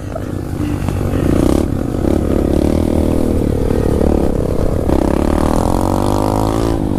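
Pit bike engine running under throttle, revving up and down as it rides, the pitch dipping and climbing again near the end.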